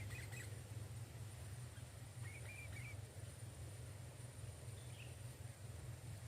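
A few faint, short bird chirps, among them a quick run of three notes about two seconds in, over a steady low rumble.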